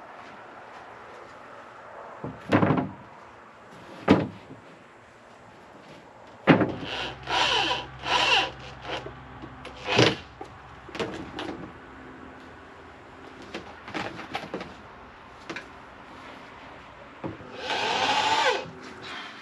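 Woodworking: wooden pieces knocked and handled, with several short bursts from a power tool. The longest burst comes near the end.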